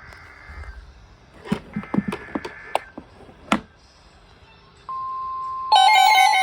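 Short bursts of electronic Emergency Alert System data tones, a harsh two-pitch buzzing, mixed with a few sharp clicks and knocks. A steady electronic beep tone starts about five seconds in, and loud music with a guitar comes in shortly before the end.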